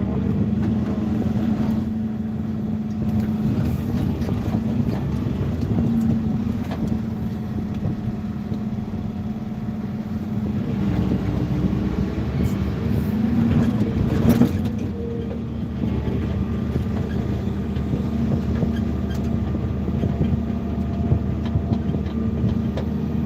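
A heavy engine running steadily at a constant speed, with a few scattered knocks, the loudest about fourteen seconds in.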